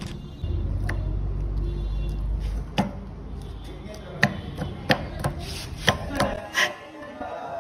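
A low steady hum for about two seconds, then a run of about seven sharp metallic knocks and clinks with a short ring, from the steel gears and shaft of a truck manual transmission being handled on the bench.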